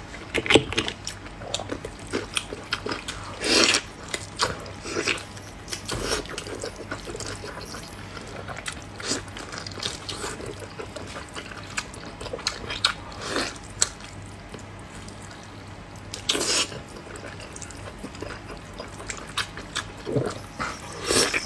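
A person eating close to the microphone: wet chewing and mouth smacks in irregular bursts, with a few louder bites, one about three and a half seconds in and one about two-thirds of the way through.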